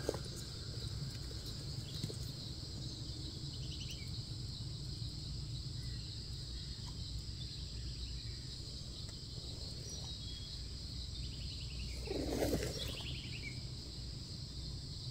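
Steady high insect drone in the forest, with a few short bird calls about four seconds in and again about twelve seconds in.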